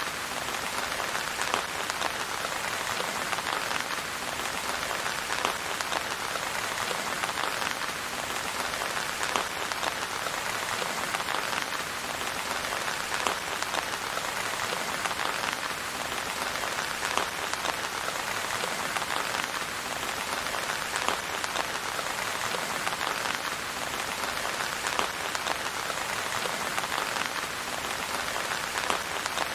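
Steady rain falling on a surface: a dense patter of individual drops over an even hiss.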